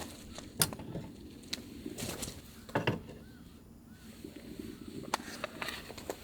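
Camping gear being handled during camp setup: scattered clicks and knocks, the heaviest a double knock a little under three seconds in.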